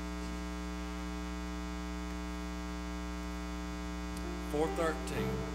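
Steady electrical mains hum. A brief wavering pitched sound comes in about four and a half seconds in.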